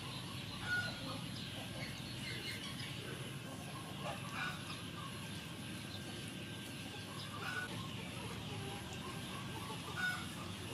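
Chef's knife slicing through boiled pork belly on a wooden cutting board, over steady background noise, with four short high-pitched animal calls, about a second in, at around four and seven and a half seconds, and near the end.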